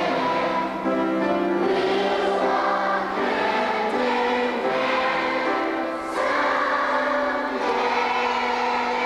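A choir singing in sustained harmony, holding long notes and changing chord every second or so.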